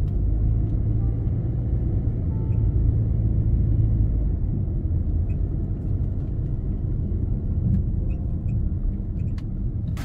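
Car driving along a paved road, heard from inside the cabin: a steady low rumble of engine and tyres.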